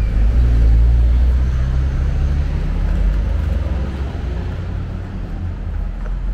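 Low rumble of a motor vehicle's engine passing on the street, loudest at first and fading away over several seconds, over general city traffic noise.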